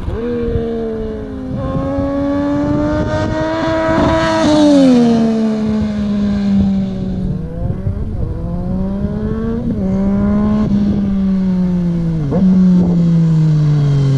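Yamaha MT-09's three-cylinder engine through a full Termignoni exhaust with no catalytic converter and no dB-killer, revving up and down. The pitch climbs and falls several times, with sharp quick blips of the throttle near the end.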